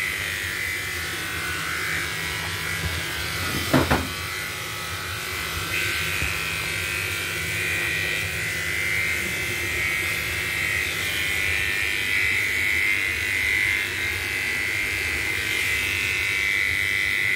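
Electric pet hair clippers running with a steady buzz as they shave a cat's fur, the buzz rising a little in pitch and level about six seconds in. A brief louder sound cuts in about four seconds in.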